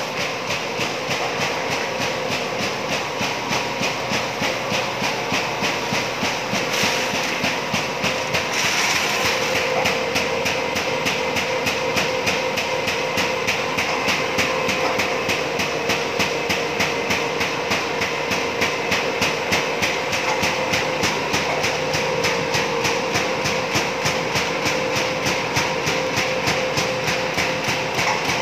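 High-speed single-knife paper sheeter running, its cutting knife chopping the unwinding paper web into sheets in a fast, even clatter over a steady machine tone.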